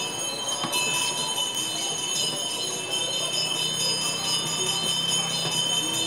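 Bell-like chimes in a background music track, a shimmer of several high ringing tones held steady. It cuts off abruptly at the end.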